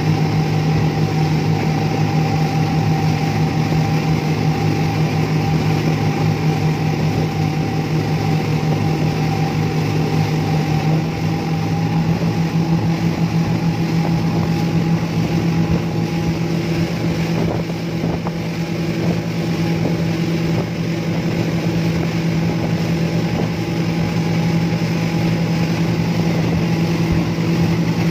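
Twin Yamaha 200 hp outboard motors running steadily at high speed, a speedboat planing across open water with its hull and wake rushing. The engine note steps up slightly about eleven seconds in.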